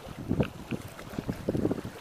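Wind buffeting the microphone in irregular low gusts, with a couple of small clicks in the first second.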